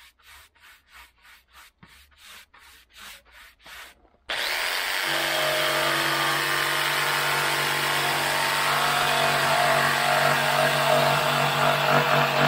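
Faint rubbing strokes on a pine plank, about three a second. About four seconds in, a corded jigsaw starts abruptly and runs steadily, its blade cutting across a pine board.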